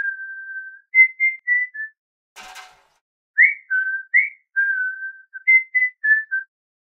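A person whistling a short tune in clear single notes, some held and some sliding up, with a brief noisy sound about two and a half seconds in.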